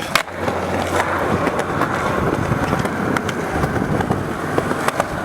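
Steady rumble of wheels rolling over pavement, with a few sharp clicks scattered through it.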